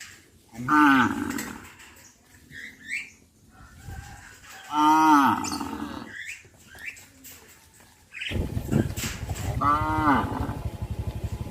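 Cows mooing: three separate long moos a few seconds apart, each sliding down in pitch. From about eight seconds in, a steady rough rumbling noise comes in underneath the last moo.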